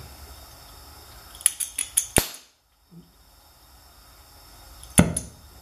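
Flint striker being squeezed to light an oxy-acetylene brazing torch: a quick run of sharp clicks, then one louder click near the end.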